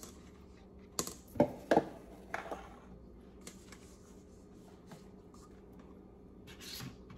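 A metal spoon clicks against a bowl about four times in the first two and a half seconds while thick sauce is scraped out, then only faint scraping.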